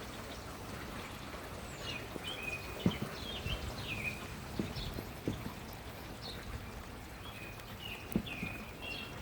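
Small birds chirping in short, scattered calls over a steady hiss of light rain, with a few soft knocks like footsteps on wet ground.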